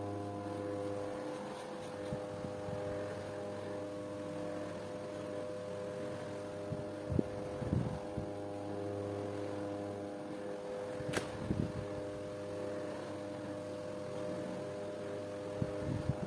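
Steady machine hum with several fixed pitches, some fading in and out, like a fan or household appliance running. A few soft knocks break in, with a sharp click about eleven seconds in.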